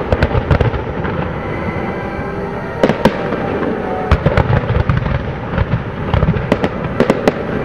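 Aerial fireworks shells bursting: a string of sharp bangs, bunched about three seconds in and again near the end, with a low rumble between them, heard over music.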